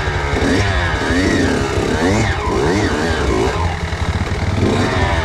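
Kawasaki KX85 two-stroke dirt bike engine being ridden hard, revving up and dropping back several times in quick succession.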